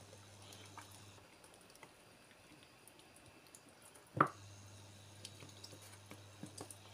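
Cooking cream poured from a carton into a frying pan of fish and green beans: faint dripping and splashing, with one short, louder sound about four seconds in. A low steady hum runs underneath and drops out for a few seconds.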